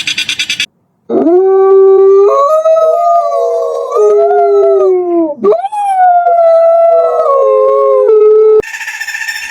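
A canine howling: two long, drawn-out howls, each sliding up at the start and then holding a wavering pitch, the second starting about halfway through.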